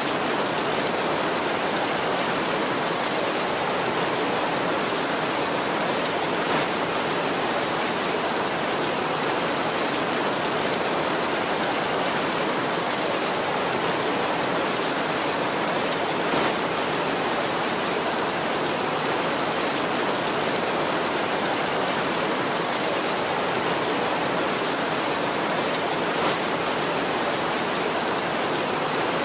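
Steady heavy rain, an even hiss with no thunder, and now and then a single drop hitting a little louder.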